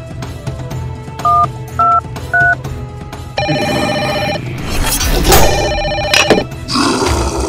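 Telephone keypad tones: three short two-note beeps, each a step higher than the last, followed by a ringing tone that sounds twice, about a second each time, as the call goes through, over background music.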